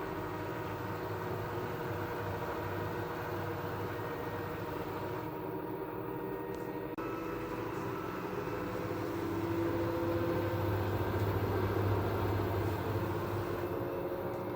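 LG direct-drive washing machine running: a steady mechanical hum with several whining tones. The sound changes abruptly about seven seconds in, then a tone rises and grows louder in the middle.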